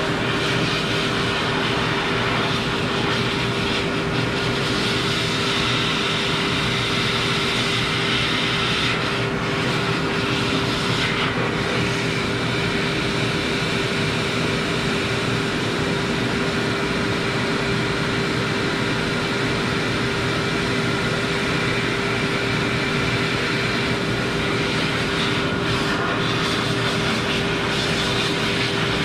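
Pet grooming blower dryer running steadily, a loud rush of air over a constant motor tone.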